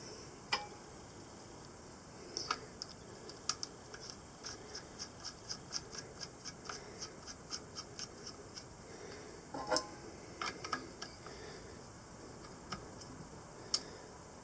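Light metallic clicks and ticks of TPS scope-ring screws being turned in with a small hand key, about three a second for several seconds, then a few louder clicks.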